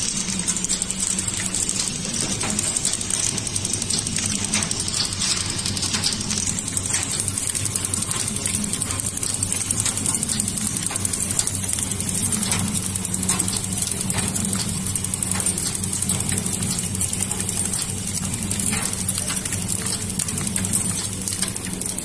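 Horizontal flow-wrap (pillow) packing machine running steadily, wrapping candy bars in film: a continuous mechanical clatter of many quick clicks over a steady hum.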